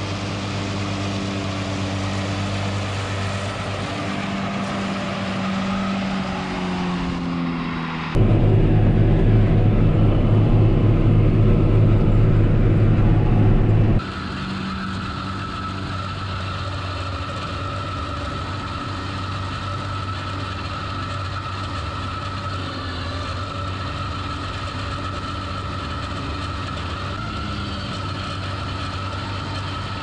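Diesel engine of a John Deere tractor running steadily under load as it pulls a New Holland mower-conditioner mowing alfalfa, the mower running behind it. The sound jumps much louder about eight seconds in and drops back about six seconds later.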